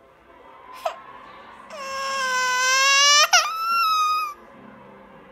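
Baby starting to cry: a short whimper about a second in, then one long wail of a couple of seconds with a catch near its end.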